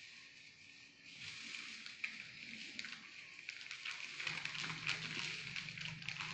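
Thin plastic bags crinkling and rustling as hands knead air-dry clay inside them, a fine crackle that gets busier from about a second in.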